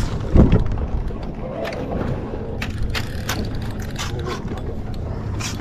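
Spinning reel clicking and rattling irregularly as a hooked fish is fought on it, with a heavier knock about half a second in, over a steady hiss.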